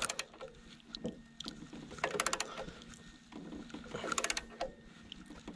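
Ratcheting box wrench clicking in short runs, about two seconds and four seconds in, with metal-on-metal creaks as it is worked against a tight generator rotor bolt, the shaft braced with a pliers wrench.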